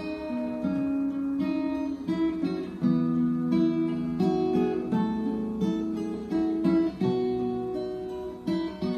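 Background music: acoustic guitar playing steadily.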